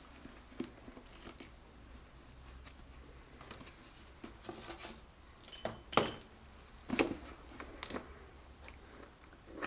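Hand tools and metal engine parts clicking and clinking as they are handled, with the loudest clinks about six and seven seconds in, one of them ringing briefly.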